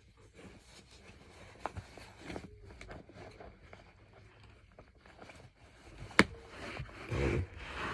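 Rustling and handling of a site knee pad and its strap being fitted over the knee, with scattered small clicks and one sharp click about six seconds in.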